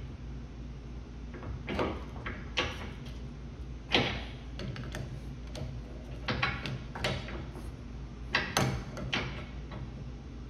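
Irregular metallic clicks and knocks of a wrench working on the hydraulic hose fittings as they are tightened into the cylinder, over a steady low hum.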